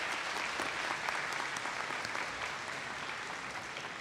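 Audience applauding, many hands clapping at once, the applause slowly dying down near the end.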